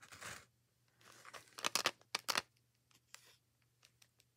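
Plastic blister packaging crinkling and clicking as it is handled, in a few short crackles with quiet gaps between, the loudest a little under halfway through.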